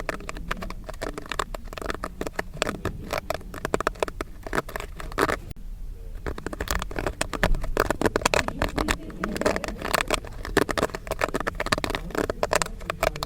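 Popcorn kernels popping rapidly in a pan, a dense irregular crackle of sharp pops that thins briefly about halfway through.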